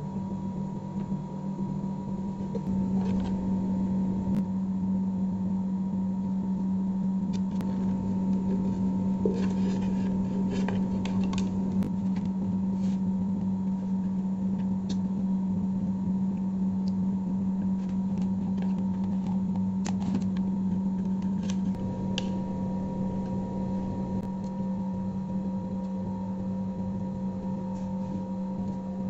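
A steady low hum holding one pitch, with light clicks and taps scattered through it, a cluster of them in the middle.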